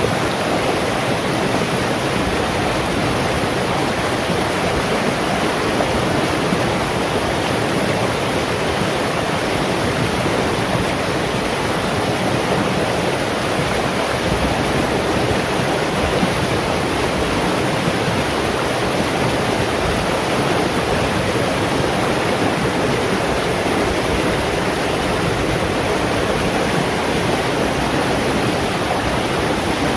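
Shallow stream flowing fast over rocks and boulders, a steady rush of water without a break.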